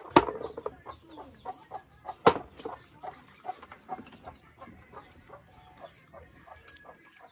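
Chickens clucking over and over, with two loud sharp knocks, one right at the start and one about two seconds in.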